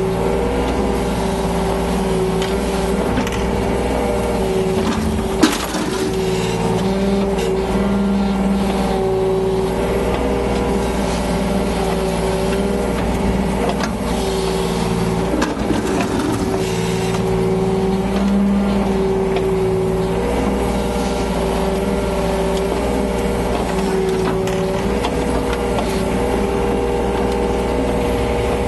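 Yanmar BV25 mini excavator's diesel engine running steadily under work, its note wavering slightly as the hydraulics take load while it digs and loads sand, with one sharp knock about five seconds in.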